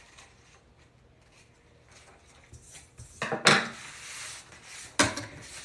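Handling sounds on a tabletop: a printed paper pattern rustling and being moved, with a louder stretch of rustle and knocks about three seconds in and a sharp clack near the end as something hard is set down.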